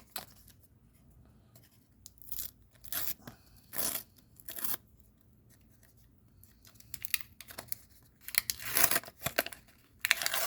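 Paper sticker pack and stickers being handled: short scattered bursts of paper rustling and tearing, a few in the first half and a denser run near the end.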